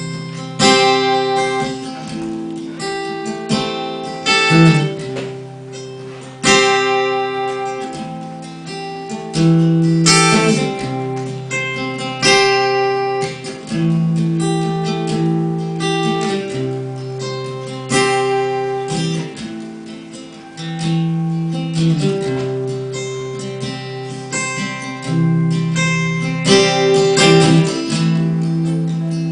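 Acoustic guitar being strummed, with chords ringing out and a fresh strum every second or two: the instrumental introduction to a song.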